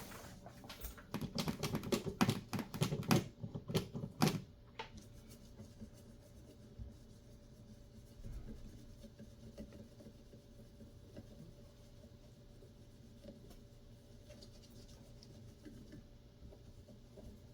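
Rapid scratchy scrubbing and clicking on a graphics card's circuit board for about four seconds while it is cleaned up after desoldering, then only a faint steady hum.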